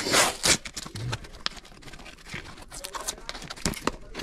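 Small cardboard box being torn open by hand: a short burst of tearing at the start, then scattered light clicks and rustles of the cardboard flaps being pulled back.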